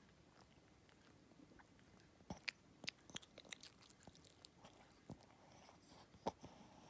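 A small dog's mouth noises: a quiet run of small, sharp, irregular clicks and crunches, like chewing. They start a little over two seconds in and last about four seconds.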